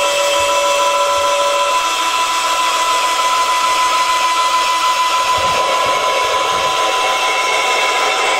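Electric hydraulic pump of a model tipper truck running steadily with a whine, powering the telescopic ram that holds the tipper body raised.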